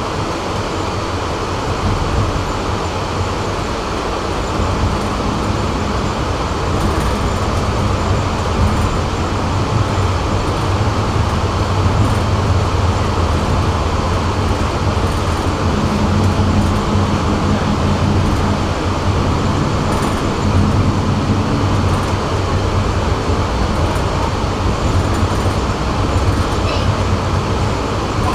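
Tram in motion: steady rolling noise of its wheels on the rails with a low hum underneath.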